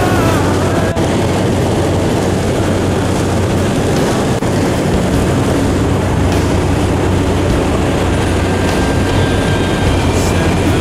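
Propeller engine of a skydiving jump plane and rushing air, heard from inside the cabin during the climb: a loud, steady low drone.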